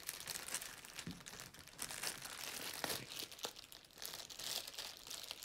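Clear plastic packaging bag crinkling and rustling in the hands as it is worked off a boxed part, in quick irregular crackles.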